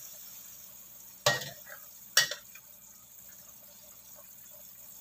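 A ladle stirring rawon broth in a metal wok, knocking sharply against the wok twice, a little over a second in and again just after two seconds, over a faint, steady hiss from the simmering pot.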